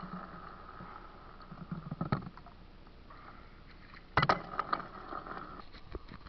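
Water splashing as hands scoop and throw icy lake water in an ice hole, with a sharp splash about two seconds in and a burst of several splashes just after four seconds.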